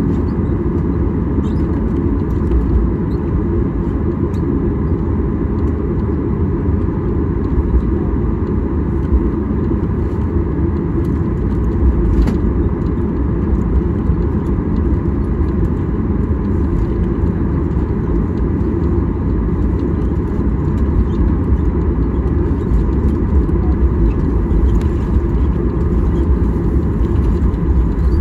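Cabin noise inside a Boeing 737-800 taxiing: a steady low rumble from its CFM56-7B engines at taxi power and the wheels rolling on the taxiway, with faint thin engine tones above it and an occasional light knock.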